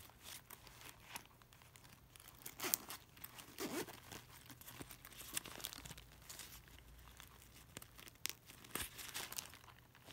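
Small zippered fabric purse being handled and its zipper worked open: soft irregular rustling with scattered light clicks of the metal zipper pulls.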